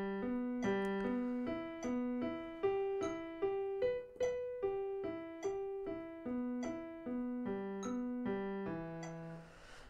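Digital piano playing an E minor broken tonic triad with the left hand: even, steady notes stepping up and back down the chord, with a slight accent about every 0.8 s.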